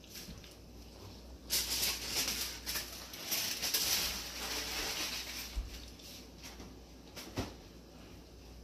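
Plantain puff puff dough balls deep-frying in a small saucepan of oil, sizzling and crackling. The sizzle grows louder from about a second and a half in until about six seconds, and there is a single sharp pop near the end.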